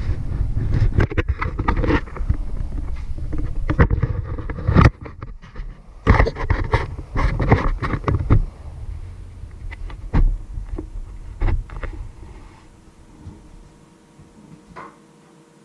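Handling noise from an action camera being moved and repositioned by hand: rubbing and rumbling on the microphone with repeated knocks and clicks against the housing. After about twelve seconds it eases off, leaving a quiet room with a faint steady hum and one small knock near the end.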